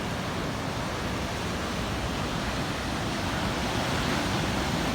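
Big ocean surf breaking, a steady rush of noise that grows slightly louder toward the end.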